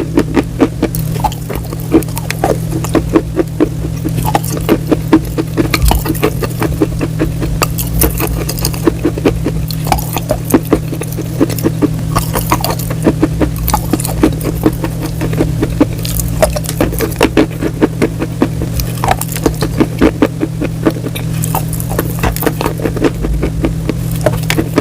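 Crunchy food being chewed, a dense run of sharp crunches several times a second, over a steady low hum.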